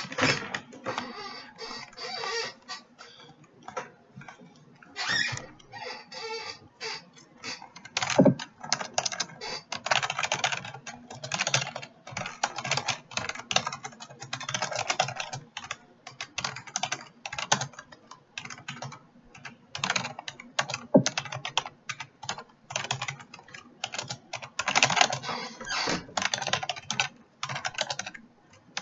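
Computer keyboard typing in quick bursts of key clicks with short pauses between words, with a couple of louder single key strikes, likely the space bar or enter key.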